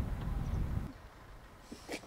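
Peugeot RCZ's engine running with a low rumble, then switched off about a second in, followed by a couple of faint clicks.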